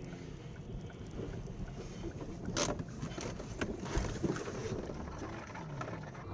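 Low rumble of a vehicle in motion, with wind on the microphone and a few brief knocks.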